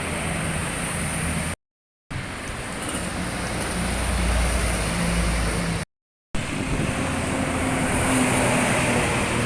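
Buses and other road traffic passing, with steady engine hum and tyre noise and a heavier low engine rumble in the middle as a bus goes by. The sound cuts to silence for about half a second twice.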